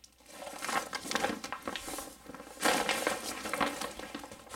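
Lightweight rescue litter, a sheet that feels like reinforced Mylar with webbing handles, rustling and crinkling as it is unfolded by hand, loudest for about a second in the middle.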